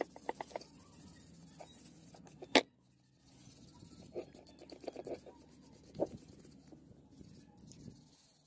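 Hand wire brush scrubbing rust off a steel hatchet head: a quick scratchy rasping of wire bristles on metal. A sharp knock about two and a half seconds in, the sound stops briefly, then the scrubbing starts again, with another knock about six seconds in.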